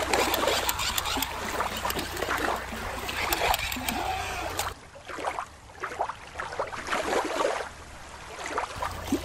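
Shallow water lapping and splashing against a rocky shoreline, with a few faint short calls in the background. About halfway through, the sound drops to a quieter, duller ambience for a few seconds.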